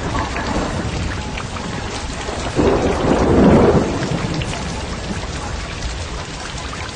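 Steady heavy rain, with a roll of thunder that swells about two and a half seconds in and dies away a second and a half later.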